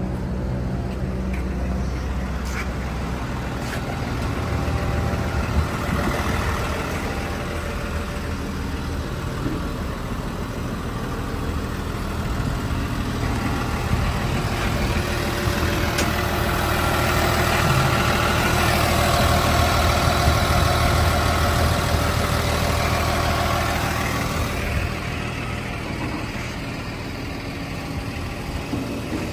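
Diesel engine of a Volvo wheeled excavator idling steadily, growing somewhat louder through the middle stretch before settling back.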